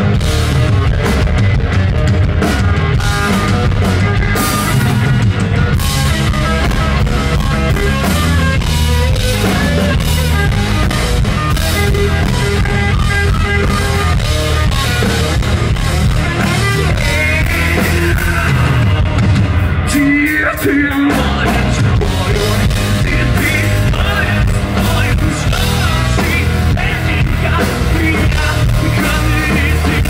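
Live rock band playing loud: electric guitars, bass and drums, with a voice singing over it at times.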